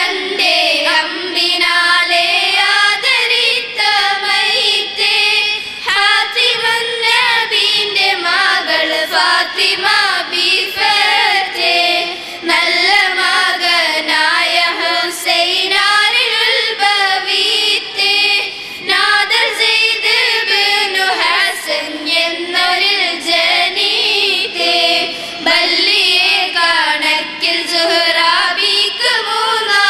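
A group of young girls singing a song together into microphones, their voices amplified, with a continuous wavering melody.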